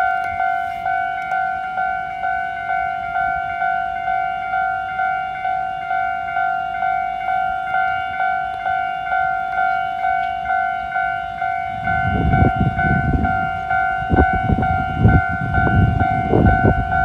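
Level-crossing warning bell ringing in an even electronic ding-ding, about two strikes a second. From about twelve seconds in, a Taiwan Railways tourist train runs over the crossing, with a heavy rumble and clattering wheel knocks that grow louder than the bell.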